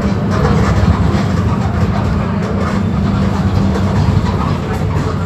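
Mercedes-Benz OF-1721 BlueTec 5 bus's diesel engine running with a steady low drone, mixed with rattling from the bus body and road. The engine note changes about four seconds in.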